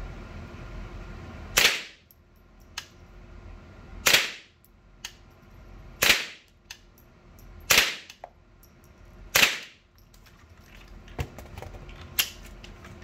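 Five rifle shots from an AR-15-pattern rifle fired at a steady pace, about two seconds apart, each with a short echo off the range walls. Near the end come two lighter, sharp clicks as the rifle's action is worked.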